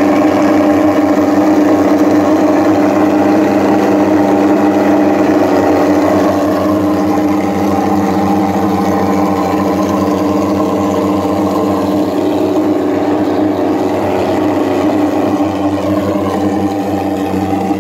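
Vehicle-mounted twin-barrel thermal fogging machine running while it fogs: a loud, steady, even-pitched mechanical drone.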